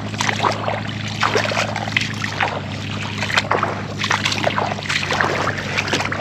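Irregular sloshing and splashing of someone wading through shallow tidal water over a mudflat, with a steady low hum underneath.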